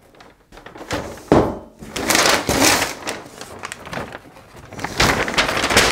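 Brown kraft packing paper crinkling and rustling as it is pulled off a steel amplifier chassis, with a single thump about a second in.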